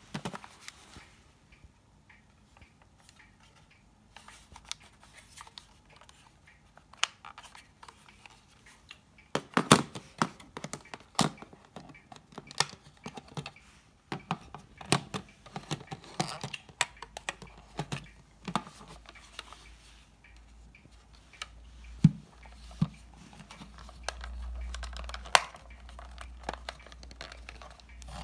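Casio TV-880 pocket LCD colour TV being handled: scattered plastic clicks and taps. They are sparse at first, come thick and fast from about ten seconds in, and end with a couple of sharp louder snaps.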